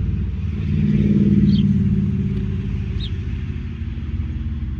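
An engine running steadily, a low hum that swells a little about a second in and eases back.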